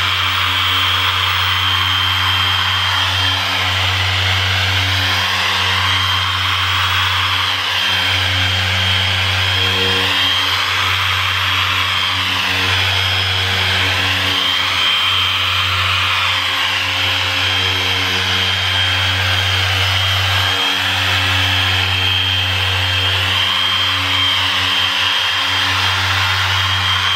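Dual-action car polisher running steadily with a foam pad on a car's painted door, polishing oxidised single-stage paint: a constant motor whine over a low hum, its pitch wavering slightly.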